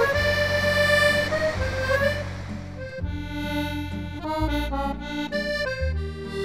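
Instrumental background music: a melody of held notes over a bass line, turning to shorter, brighter notes about halfway through.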